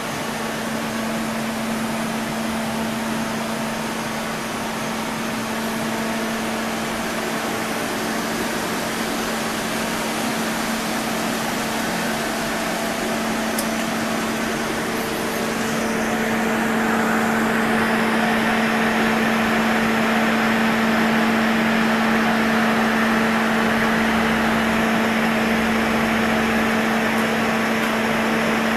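Dainichi F 250 MC CNC lathe running: a steady machine hum with one constant low tone under a hiss. The sound grows louder and brighter a little past halfway and then holds steady.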